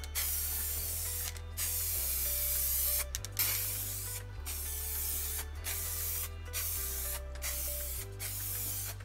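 Aerosol spray-paint can hissing in bursts, broken by about six short pauses as the nozzle is released and pressed again. Background music with a low, stepping bass line runs underneath.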